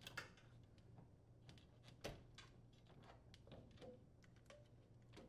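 Near silence with faint scattered clicks of plastic wire connectors being handled and unplugged from a microwave control board, one slightly louder click about two seconds in, over a low steady hum.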